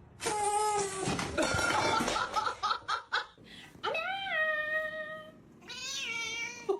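A cat meowing: a noisy stretch of sound at the start, then a long drawn-out meow about four seconds in, and a second, wavering meow near the end.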